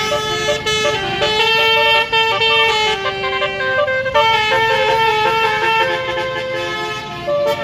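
Bus's basuri melodic horn playing a tune: a string of loud held horn notes stepping from one pitch to the next, with a short break about four seconds in.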